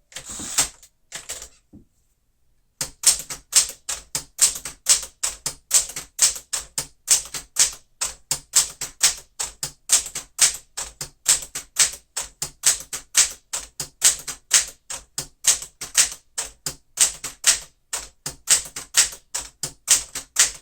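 1961 Smith-Corona Galaxie manual typewriter being typed on: a steady run of single keystrokes, about three a second, with the typebars striking the platen. There is a short pause about two seconds in.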